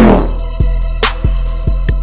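Electronic intro music with a heavy kick-drum beat under sustained synth chords; a falling sweep fades out right at the start.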